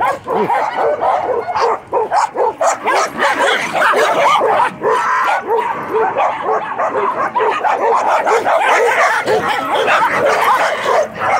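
Many dogs barking at once through a chain-link fence at each other, a dense stream of short overlapping barks and higher yelps with no break.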